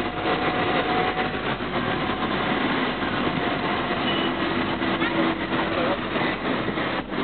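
Car driving slowly, with steady engine and road noise heard from inside the cabin and faint indistinct voices from the street.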